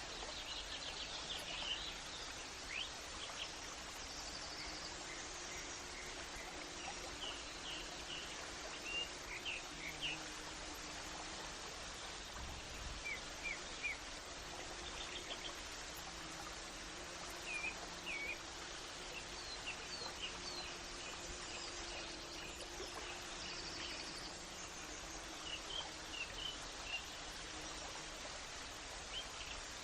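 Nature ambience: several birds chirping and calling in short scattered notes over a steady background hiss.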